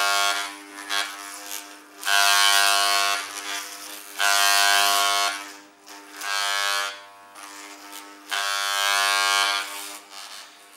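Corded electric hair clippers buzzing while held to a person's head. The buzz grows louder for about a second at a time, roughly every two seconds, and drops back in between.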